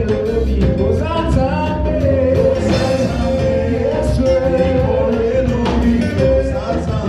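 Live band playing an upbeat song with singing over electric guitar and a steady drumbeat.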